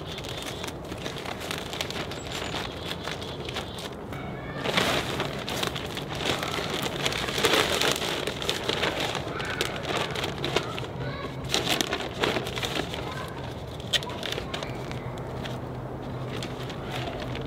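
Thin black plastic garbage bag rustling and crinkling as it is stretched around branches and taped in place, with a few louder bursts of crinkling about five, eight and twelve seconds in.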